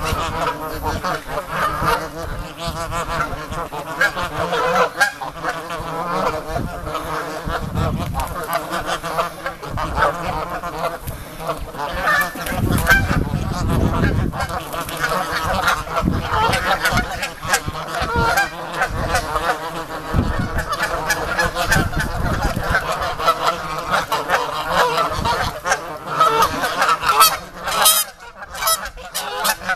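A flock of Canada geese honking, many calls overlapping without a break. The geese are acting as though mating season has begun.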